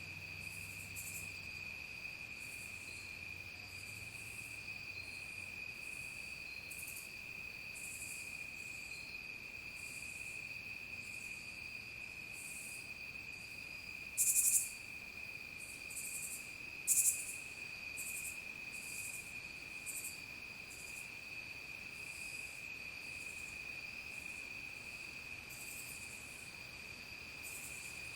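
Evening insect chorus of crickets: a steady, unbroken high trill with irregular higher-pitched chirps over it, two of them louder about halfway through.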